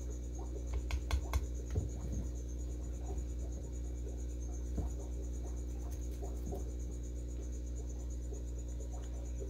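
Steady low hum under a continuous high, pulsing trill, with a few light clicks about one to two seconds in and once more near five seconds, from metal feeding tongs knocking against the feed dish.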